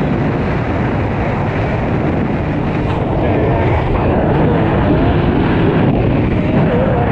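Suzuki GSX-R1000 inline-four sportbike being ridden, engine running under wind rush on the microphone, getting a little louder about three seconds in.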